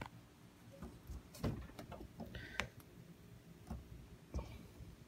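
Irregular light clicks and taps from handling, with one short high squeak about halfway through.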